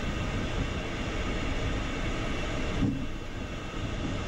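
Steady cockpit noise of an Embraer Phenom 300E taxiing, its two Pratt & Whitney Canada PW535E turbofans running at taxi power, heard from inside the cockpit.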